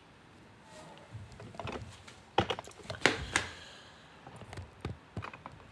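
Handling noise close to the microphone: a few sharp clicks and knocks, then lighter ticks, as the phone and things beside it are picked up and moved.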